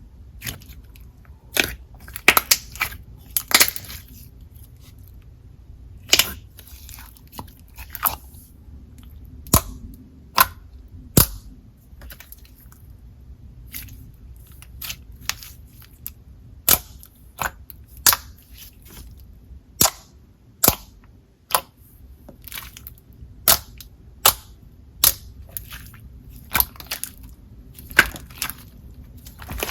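Coated jelly slime being worked by hand, giving sharp, irregular bubble pops and clicks, several seconds apart at some moments and in quick runs at others.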